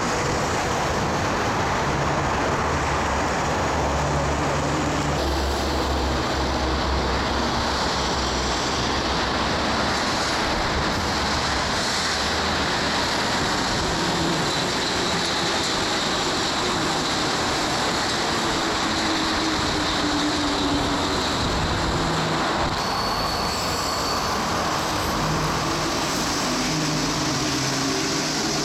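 Rubber-tyred Santiago Metro Line 2 trains running through a station: a steady, loud rumble with wavering motor tones and a faint high whine. The sound changes abruptly about five seconds in and again near the end.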